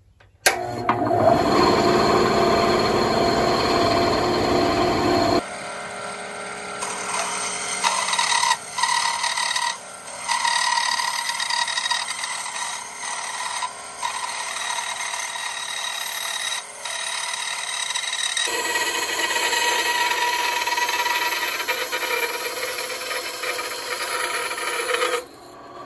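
Benchtop bandsaw starting up about half a second in and cutting through a block of wood as it is fed into the blade, the cutting noise changing abruptly a couple of times along the way. It stops suddenly shortly before the end.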